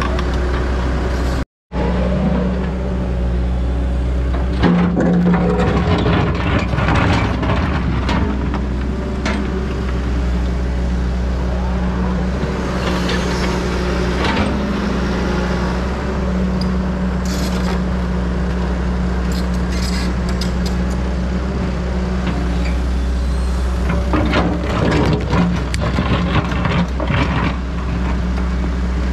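John Deere 120 excavator's diesel engine running steadily under working load, with repeated spells of clatter and scraping as the bucket digs into dirt, rocks and roots.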